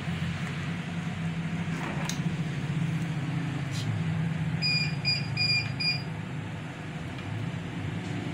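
Four quick high-pitched electronic beeps about five seconds in, over a steady low hum.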